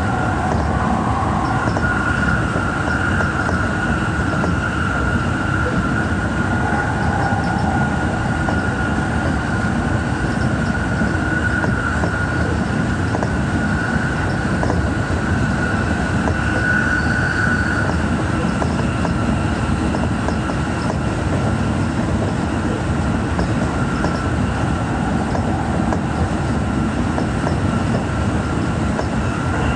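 Tsukuba Express electric train running at speed, heard from inside the leading car: a steady rumble of wheels on rail with a high whine over it.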